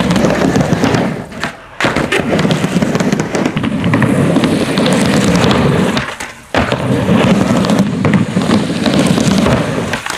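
Skateboard wheels rolling on a plywood ramp and deck with a rough, crackly rumble. The rolling drops out briefly twice, near two seconds and about six and a half seconds in.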